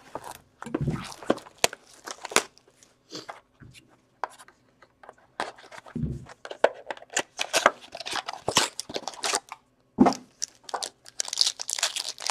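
Plastic wrapping being torn and crinkled as a sealed hockey card box and its packs are opened: quick sharp crackles throughout, denser crinkling near the end, and three dull knocks.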